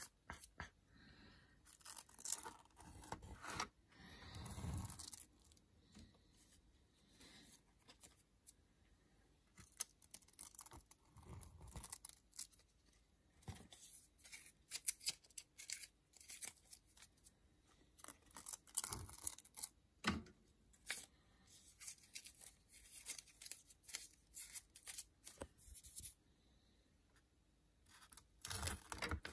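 Masking tape being peeled off a spray-painted board, with masking paper crinkling. The sound comes as irregular bursts of tearing and crackling, with quiet gaps between.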